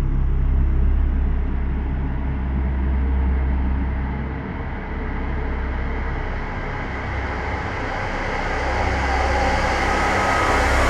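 A vehicle running: a steady low hum with a rushing noise that grows louder toward the end.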